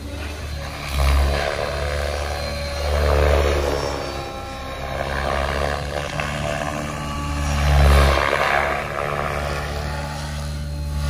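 Electric Align T-Rex 650X model helicopter flying: a steady low rotor thrum with a whine above it, swelling louder and fading as it passes, loudest about eight seconds in.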